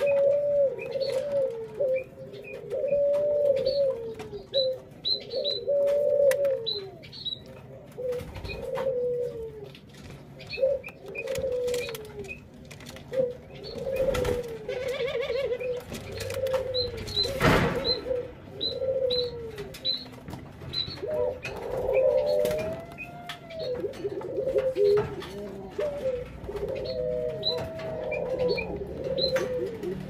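Ringneck doves cooing over and over in short, bending calls, with faint high chirps scattered through and a single sharp knock about 17 seconds in.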